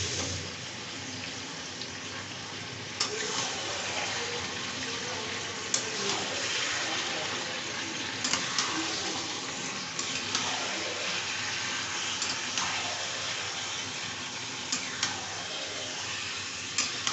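Chicken pieces and sliced onions sizzling as they fry in a steel kadai, stirred with a steel spatula that scrapes through them and knocks sharply against the pan about every two seconds.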